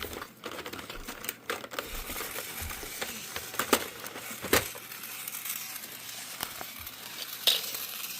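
Plastic toy packaging crinkling and rustling as toy play goggles are worked out of it by hand, with a few scattered sharp clicks and taps, the loudest about halfway through.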